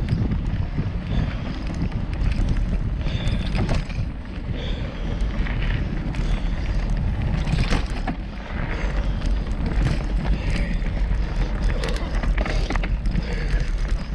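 Wind rumble on the microphone and tyre noise of a mountain bike riding a dirt singletrack, with scattered clicks and rattles from the bike.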